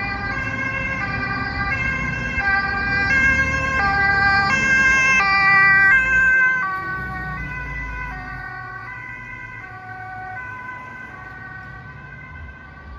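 Fire engine's two-tone siren alternating between a high and a low note roughly every three-quarters of a second, with the truck's diesel engine rumbling underneath. It grows louder as the fire engine passes about six seconds in, then drops slightly in pitch and fades as it drives away.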